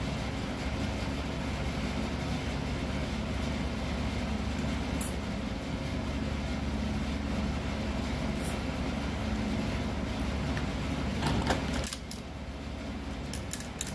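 A steady mechanical hum, like a fan or heater running, with a few light clicks and taps on top. The hum drops away about twelve seconds in, and a cluster of small clicks follows near the end.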